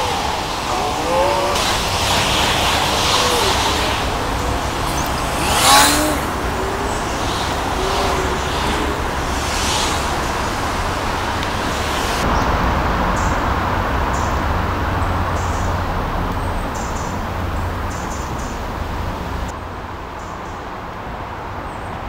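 Road traffic noise from passing cars, with a brief loud sharp sound about six seconds in. About halfway through the sound turns duller, and it drops in level near the end.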